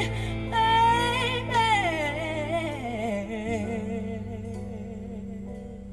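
A pop ballad: a singer's wavering vocal runs slide down over a steady held bass note, then settle into a lower held, wavering note that gradually fades.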